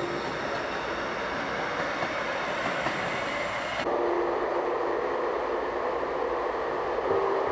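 Light-rail train running along the track past the platform, its wheels and motors making a loud, even rush. About four seconds in, the sound changes abruptly to the steady noise heard inside a moving light-rail car.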